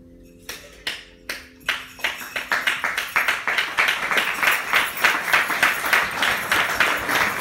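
Sharp claps, four evenly spaced at first, then quickening into a fast, dense clapping that grows louder. Under the first claps, a held chord on a Clark folk harp dies away.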